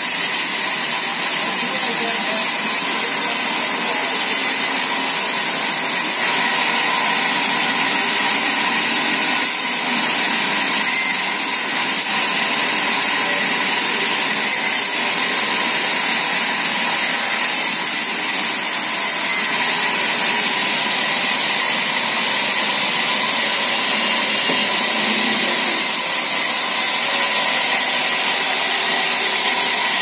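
Sawmill band saw running steadily and cutting a log lengthwise: a loud, constant machine noise with a few steady high tones over a hiss.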